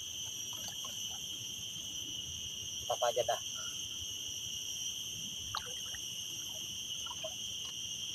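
Steady, high-pitched chorus of insects droning without a break, with a brief voice about three seconds in.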